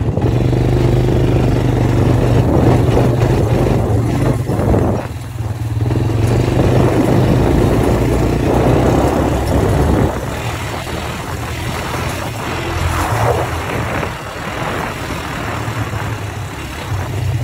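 Honda ATV's engine running steadily under way. Its level dips briefly about five seconds in and drops to a lower, steady note after about ten seconds.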